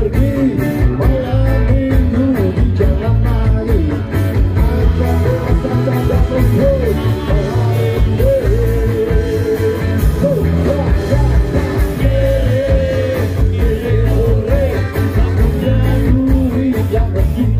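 Live ska band playing through a stage PA: a lead singer sings over electric guitars, drums and horns, with a steady beat.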